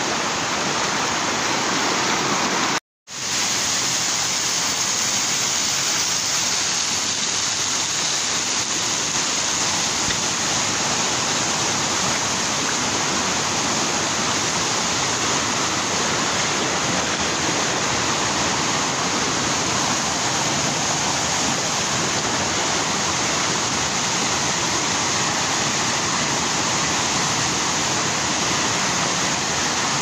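Steady rush of a waterfall and the stream below it tumbling over boulders. The sound cuts out for a split second about three seconds in, then resumes unchanged.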